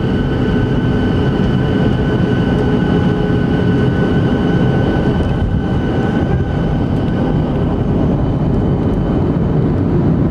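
Boeing 737-600's CFM56-7B jet engine and the rumble of the landing roll, heard from inside the cabin: a steady roar with a high whine that fades about halfway through. Near the end the thrust reverser is deployed.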